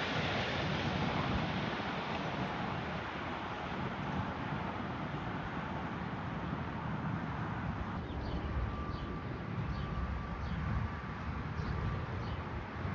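Jet airliner engine noise, a steady rushing sound that slowly fades as the aircraft moves away, over a low wind rumble. From about eight seconds in, small birds chirp faintly and repeatedly.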